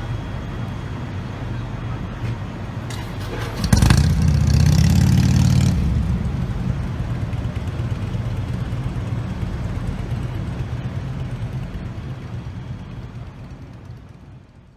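A heavy engine running with a steady low rumble, surging louder for about two seconds near four seconds in, then fading slowly away.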